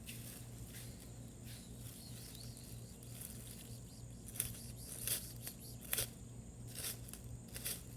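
Quiet steady low hum with a few soft clicks and rustles scattered through it.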